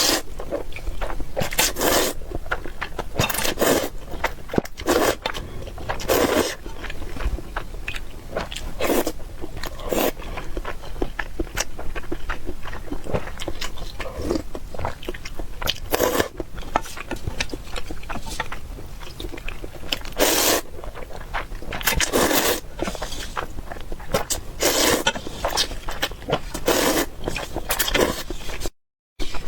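Close-miked eating: bites and chewing in short bursts every second or two, with scraping. The sound cuts out briefly near the end.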